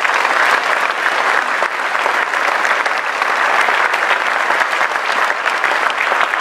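Large audience applauding steadily, a dense continuous clatter of many hands clapping.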